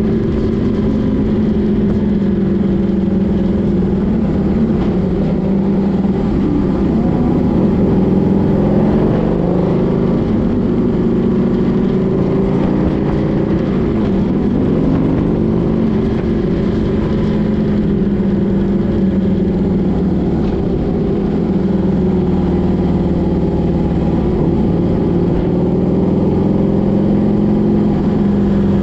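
Motor vehicle engine running steadily under road noise, its pitch drifting gently up and down as the speed changes.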